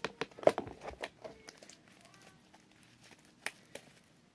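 Sticky homemade glue-and-laundry-detergent slime being kneaded and pulled by hand, crackling in a quick run of sharp little snaps in the first second or so. It then goes quieter, with two more snaps near the end.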